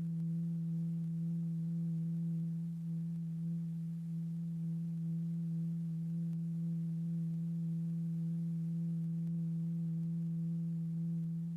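Steady low electronic tone with faint overtones, unchanging in pitch: the continuous-wave signal that drives the vibrating diaphragm in a cymatics experiment.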